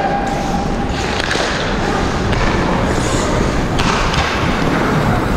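Ice hockey skates scraping and carving across the ice during play, a steady loud rush of blade noise, with a few sharp knocks.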